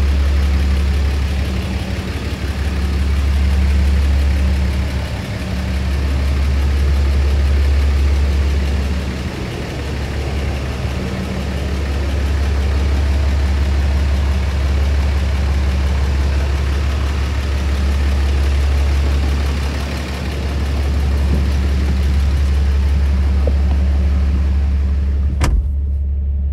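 2007 Dodge Ram 3500's 6.7-litre Cummins turbo-diesel idling steadily, its exhaust giving a deep, even drone. Near the end a door shuts with a sharp knock, and the idle turns muffled, as heard from inside the cab.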